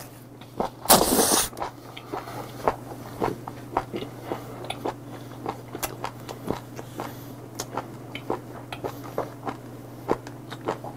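A man slurps a raw live mud octopus (sannakji) into his mouth, loudly, about a second in, then chews it steadily with many small wet clicks and smacks.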